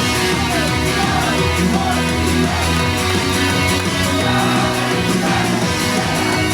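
Idol-pop song played loud at a live show: rock-style band music with drums, bass and guitar, and some singing over it.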